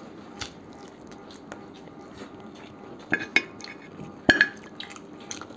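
Eating by hand off ceramic plates: a few scattered light clinks and knocks on the crockery. The loudest is a clink that rings briefly a little after four seconds in.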